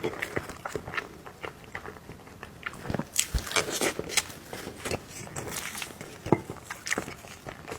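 Someone eating soft cake: biting and chewing, heard as a steady run of small mouth clicks and smacks, busiest about three to four seconds in.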